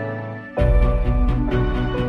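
Background music: a held, soft chord fades out, then about half a second in a fuller passage comes in with a deep bass and a steady beat.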